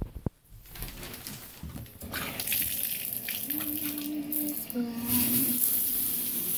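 Shower turned on: water starts spraying from the shower head, building up and growing fuller about five seconds in. Two short steady tones sound near the middle as it comes on.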